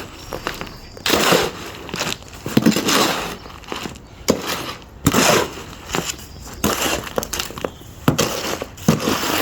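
Shovel scraping and turning a cement mix, a run of irregular gritty scrapes and crunches about one or two a second.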